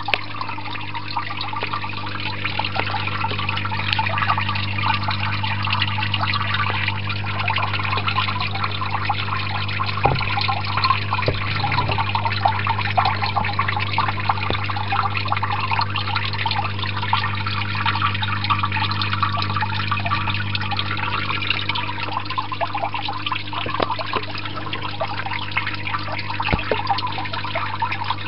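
Water trickling and dripping steadily as artificial rain inside a frog rain chamber, over a steady low hum, with a few faint knocks near the middle and near the end.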